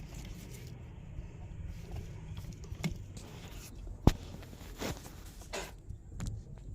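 Wiring-harness coupler being handled and pushed onto the ABS unit, with a few light knocks and one sharp click about four seconds in, over a low rumble.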